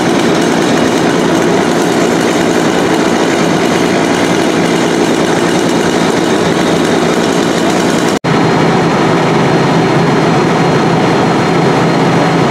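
Fire engine's diesel engine running steadily, a loud continuous drone that breaks off for an instant about eight seconds in.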